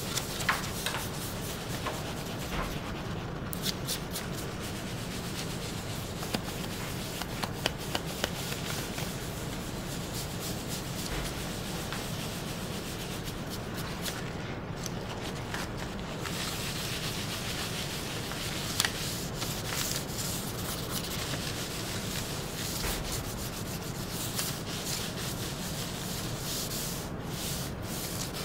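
Paper towel rubbed in circles over an inked zinc intaglio plate by a gloved hand: a continuous scratchy rubbing with scattered small clicks. This is the final wiping of surface ink off the plate, leaving ink in the etched lines.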